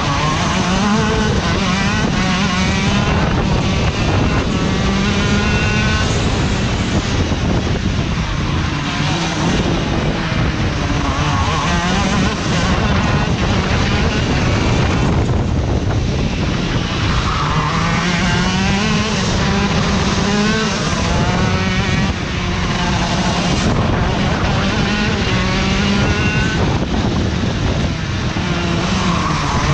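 Go-kart engine at full race pace, its pitch rising as it accelerates out of corners and dropping off into the next bend several times over, with rushing wind noise on the onboard microphone.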